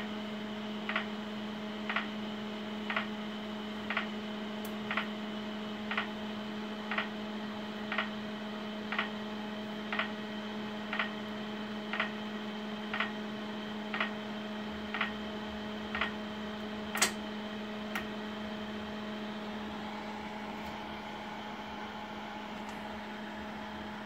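Acoustic pedestrian signal for blind people, driven by a Siemens MS5 traffic signal controller, ticking slowly at about once a second over a steady electrical hum. The ticking stops about 18 seconds in, just after a single sharper click.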